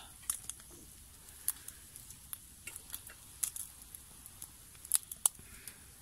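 Meat grilling over charcoal on a wire grill: a faint sizzle with irregular sharp pops and crackles.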